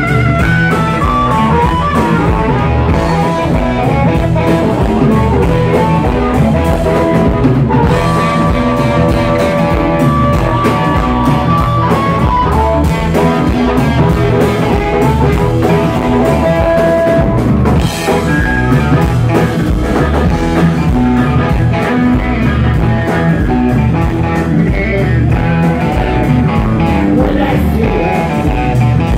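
Live blues-rock band playing an instrumental stretch with no singing: electric guitar and drum kit, with harmonica held into cupped hands carrying long, bending notes.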